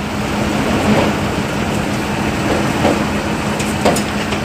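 Heavy truck's diesel engine running steadily with a constant low hum, and a few sharp knocks near the end.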